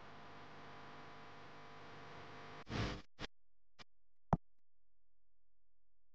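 A faint steady hum, then about two and a half seconds in a music track starts. It comes in short separate hits with dead silence between them.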